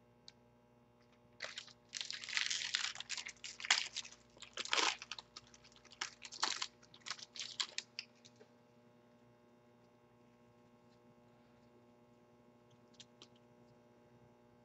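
Foil wrapper of a Topps football card pack crinkling and tearing as it is opened, a run of crackling starting about a second and a half in and stopping about eight seconds in. A low mains hum remains after it.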